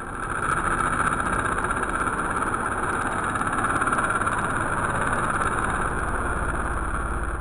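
Small battery-powered DC motor spinning a plastic three-blade fan propeller at full speed: a steady whir with a thin high whine over it.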